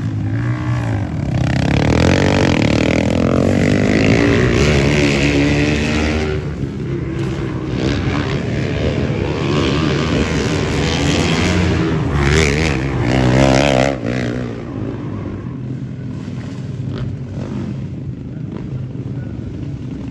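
Motorcycle engines revving, several at once, their pitch rising and falling as they pass. The sound is loudest through the first two-thirds and then eases off.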